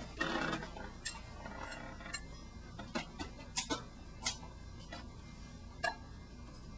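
A series of sharp clicks and taps at irregular intervals, roughly one or two a second, over a faint steady hum.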